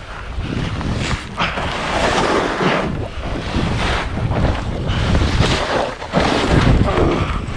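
Skis hissing and scraping over snow, swelling and easing in repeated surges as the skier turns, with wind buffeting the microphone.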